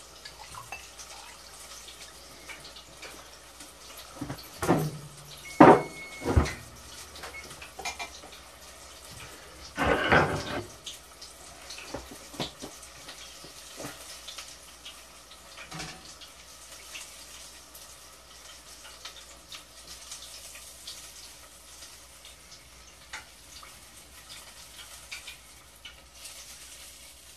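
Kitchen pans and utensils clattering: a few sharp knocks and clanks in the first seven seconds, a short rattle about ten seconds in, then scattered light clicks over a faint steady hiss.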